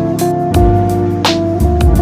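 Background music with a steady beat: plucked guitar notes over deep bass and drums.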